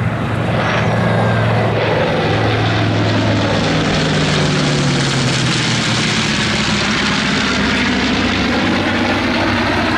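Piston engines of a B-25 bomber, a P-51 Mustang and a Spitfire flying over in formation: a steady propeller drone that slowly shifts in pitch as they pass.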